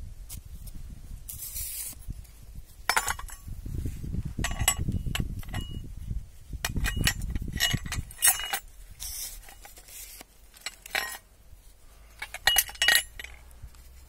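Metal chain links clinking and jingling against a heavy metal ornament as it is lifted and turned over in gloved hands, in short bursts every second or two, with the loudest clinks near the end. A low rustle of handling runs under the first half.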